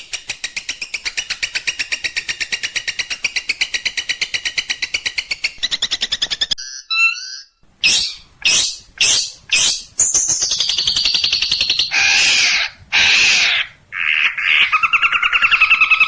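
Recorded songbird song from a cendet (long-tailed shrike) training track. It opens with a fast, even run of sharp chips for about six seconds. After a short break come a few loud harsh notes and raspy scolding calls, then a rapid two-pitched trill near the end.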